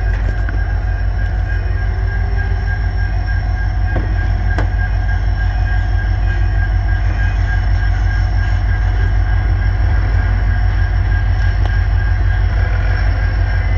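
Alaska Railroad passenger train's diesel equipment running beside the platform: a steady low rumble with a constant high-pitched whine.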